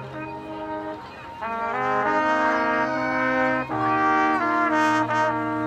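Marching band brass playing long held chords. The chords are soft at first and grow much louder about a second and a half in, with a quick break and re-entry about two-thirds of the way through.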